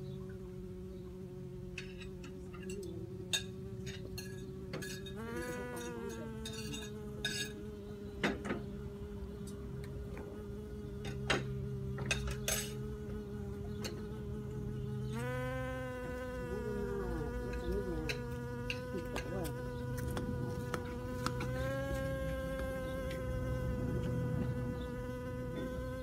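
A mating pair of bees buzzing with their wings: a steady buzz that steps up a little in pitch three times, with a few small clicks scattered through it.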